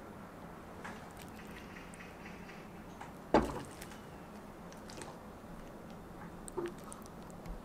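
Quiet room tone with a steady low hum, broken by a single sharp knock about three and a half seconds in and a few faint clicks.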